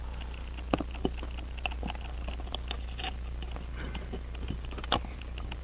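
Small irregular clicks and taps of a pocket watch movement and its case being handled, with sharper clicks about a second in and near the end, over a steady low hum.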